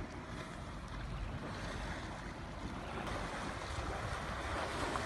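Steady wind rumble on the microphone over the rush and lapping of river water around a boat, with no distinct events.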